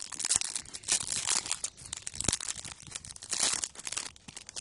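Foil trading-card packet being torn open and crinkled in the hands. The crackling comes in irregular bursts, loudest about a second in and again past three seconds.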